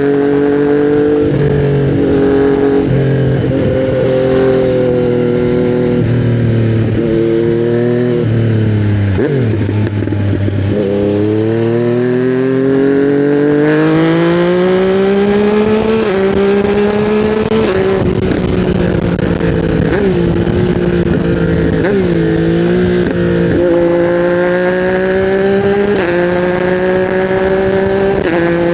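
Yamaha MT-09's 847 cc three-cylinder engine running through an Akrapovic titanium silencer on custom headers while riding. The revs hold fairly steady with brief dips, drop sharply about a third of the way in, then climb in one long rise under acceleration and settle again, with a few short dips near the end.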